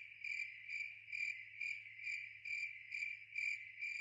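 Crickets chirping in a steady pulsing rhythm, about two chirps a second, over a faint low hum.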